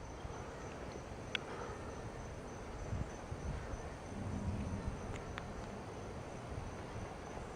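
Night insects trilling steadily in the background, with a soft low rumble about halfway through and a couple of faint clicks.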